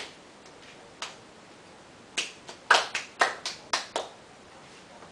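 Sharp hand claps: two single ones about a second apart, then a quick, uneven run of about eight between two and four seconds in.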